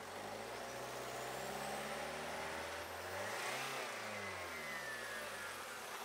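A motor vehicle driving past. Its engine and road noise build to a closest pass about three and a half seconds in, then drop in pitch and fade.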